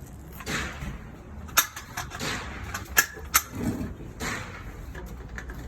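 A few sharp clicks or knocks, three of them standing out at about one and a half, three and three and a half seconds in, among softer rustling: handling noise at a shooting bench.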